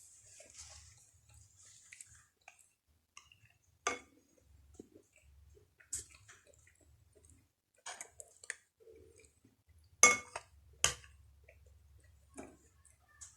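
Close-miked eating of crumbly maize pap (uphuthu) with sour milk: soft moist chewing and mouth sounds, broken by scattered sharp clicks, the two loudest about ten and eleven seconds in.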